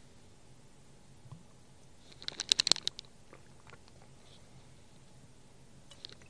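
A brief, rapid rattle of sharp plastic taps and clicks about two seconds in, from a scoop knocking against a tub of pre-workout powder as it is measured out, with a few faint ticks of handling around it.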